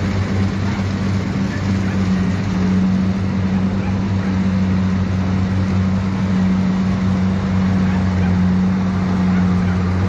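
Rice combine harvester's engine running steadily at a constant speed with a deep, even hum.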